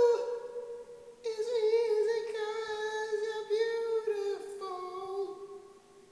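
A teenage boy singing alone in a high voice, holding long drawn-out notes that waver a little in pitch, then trailing off near the end. It is meant as a horrible singing voice.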